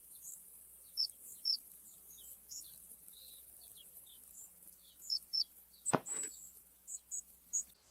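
Faint, scattered short bird chirps and tweets, with one sharp click about six seconds in.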